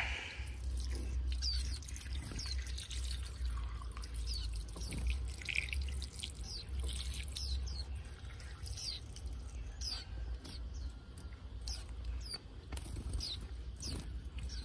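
Caged young white-eyes calling with short, high chirps that fall in pitch, one or two every second, over a low rumble.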